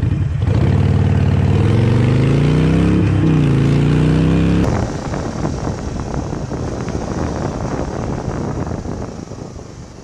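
A cruiser motorcycle engine accelerating hard, its pitch rising, dropping briefly near three seconds as it shifts up, then rising again. About halfway through it cuts off suddenly to a quieter rush of wind and engine noise from another motorcycle, which fades near the end.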